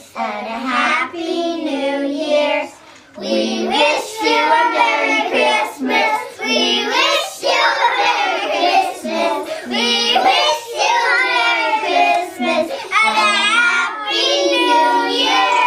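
A group of young children singing together, with a short break about three seconds in.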